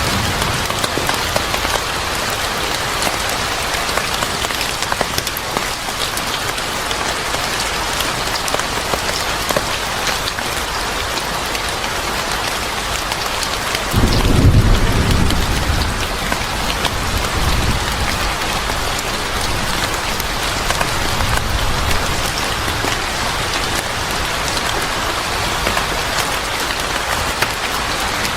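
Steady rain falling, with a sudden roll of thunder about halfway through that rumbles low for a few seconds and fades away.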